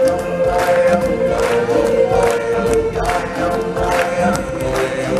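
Live stage music: a solo singer holds one long note over a choir and a drumbeat.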